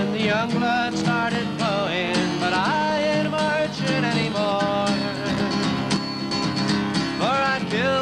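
A man singing a folk song, accompanying himself on a strummed acoustic guitar.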